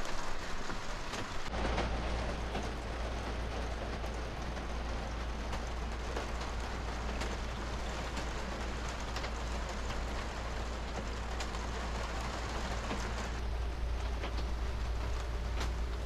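Boat air-conditioning system running with a steady rushing hiss. A low motor hum switches on abruptly about a second and a half in and holds steady, as a pump or compressor kicks in.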